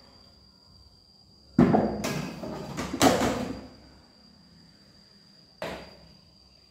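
Household items being handled and knocked about: a sudden knock about one and a half seconds in, then about two seconds of clattering and rustling, and a short sharp knock near the end. A steady high thin whine sits underneath.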